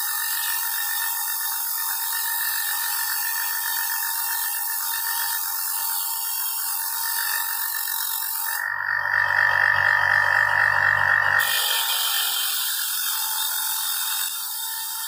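Wire brush wheel on a bench grinder scrubbing rust off a steel masonry trowel blade: a steady, scratchy grinding noise. A little past the middle it grows louder and picks up a low hum for about three seconds, then settles back.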